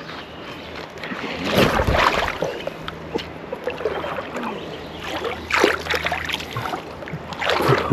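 Shallow river water splashing and sloshing as a person wades in, in three surges: about one and a half seconds in, around five and a half seconds, and near the end.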